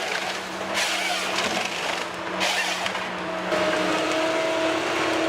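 A heavy machine running steadily, its engine noise carrying a constant whine. The sound shifts about three and a half seconds in, with a new higher tone coming in.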